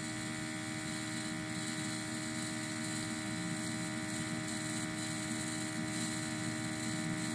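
Steady electrical hum with a faint hiss and several constant tones underneath, unchanging throughout: the background noise of the recording setup, with no other event.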